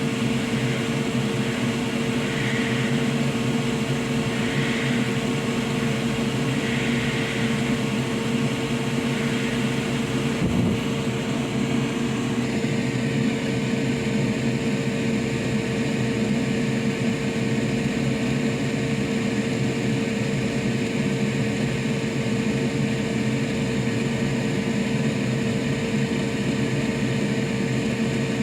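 Steady hum of a small electric blower or fan at a soldering bench, holding one constant tone, with a faint knock about ten seconds in and a slight change in its hiss soon after.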